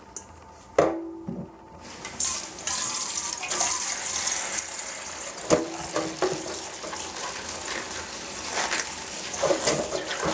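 Kitchen tap turned on about two seconds in, its stream running steadily into a stainless steel bowl in a stainless steel sink while baby bok choy leaves are rubbed and rinsed by hand. The bowl clanks and rings against the sink about a second in and again about halfway.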